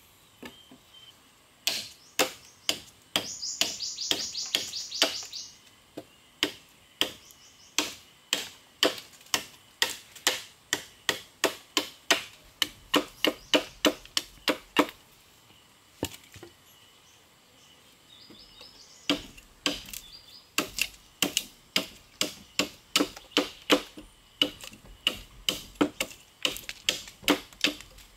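Knife blade chopping a point onto a green wooden stake held against a log: sharp wooden knocks, about two to three a second, with a pause of a few seconds past the middle.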